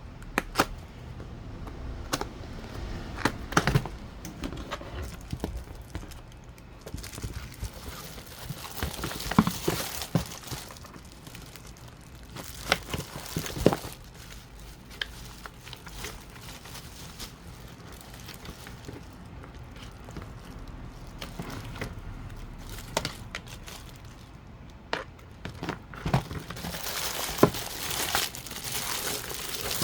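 Plastic packaging of a wired keyboard and mouse set crinkling and rustling as it is unwrapped, with scattered sharp clicks and knocks from the box and parts being handled.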